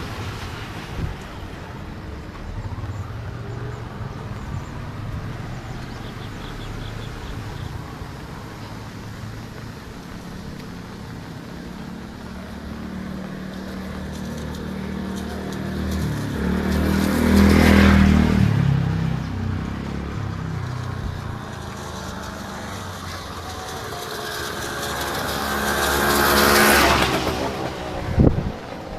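Road traffic: motor vehicles passing close by, one about halfway through and another near the end, each engine rising and fading away, over a steady hum of traffic.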